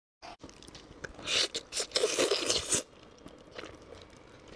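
Close-miked biting and chewing of braised pig tail: wet, sticky mouth sounds with crunches, loudest and densest from about one to three seconds in, then only scattered small clicks.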